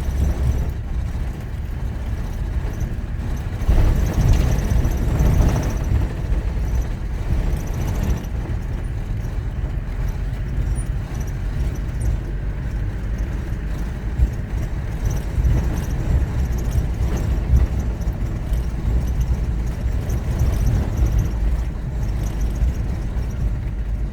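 Car driving over a washboard-corrugated dirt road: a steady low rumble of tyres and suspension, louder for a couple of seconds about four seconds in.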